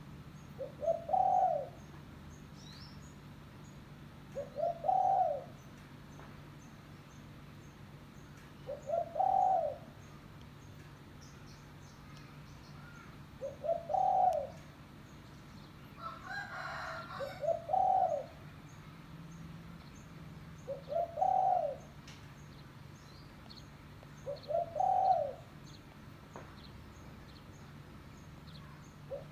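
A spotted dove (tekukur) cooing its lure call: seven phrases about four seconds apart, each a few short notes running into a longer coo.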